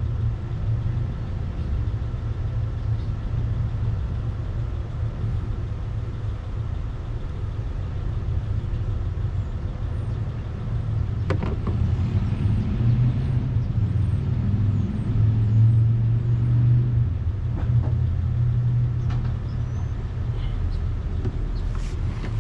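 A motor vehicle's engine rumbling steadily, swelling somewhat about halfway through. A couple of sharp clicks or knocks come about 11 seconds in and again near the end.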